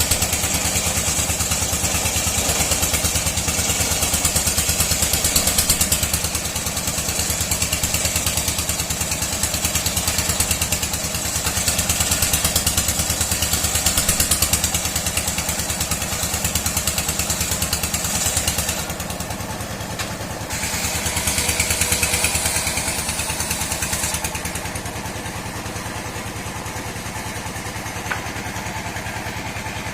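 An old sawmill's engine-driven saw running steadily with a fast, even engine pulse and a high whine, sawing dry mahogany. The sound dips about 19 seconds in, and from about 24 seconds in it settles lower as the high whine fades.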